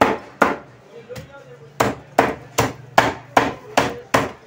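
Large knife chopping through fish flesh onto a wooden chopping block: two sharp chops, a pause of about a second, then a steady run of seven chops at about two and a half a second.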